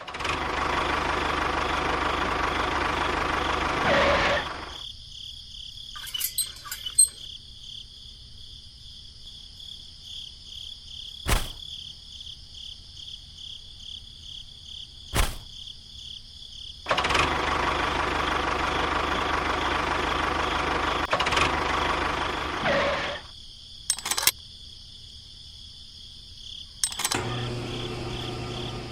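A small motor, likely that of the homemade mini tractor model, runs steadily twice: once for about four seconds at the start and again for about six seconds past the middle. Steady cricket chirring runs underneath, and a few sharp knocks fall in between.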